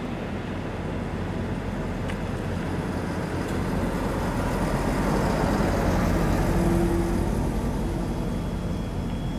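A Bombardier Itino diesel railcar (DB class 615) rolls slowly past at platform speed, its underfloor diesel engines running. The sound swells as it draws level, loudest about six to seven seconds in, with a low engine drone and a higher hum, then eases a little.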